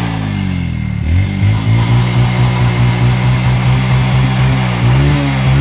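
Motor vehicle engine running. Its pitch drops in the first second, climbs again about a second in, holds steady, and rises once more near the end as the engine is opened up.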